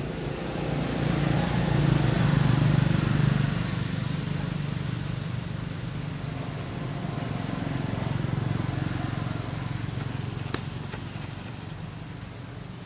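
A motor vehicle passing, its low engine rumble swelling about two seconds in and again around eight seconds, then fading. A steady faint high tone sits underneath, and a single sharp click comes near the end.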